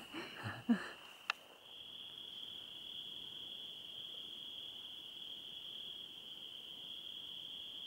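Crickets trilling: one steady, unbroken high-pitched trill that grows stronger about a second and a half in. A voice trails off at the very start and a single sharp click sounds just before the trill strengthens.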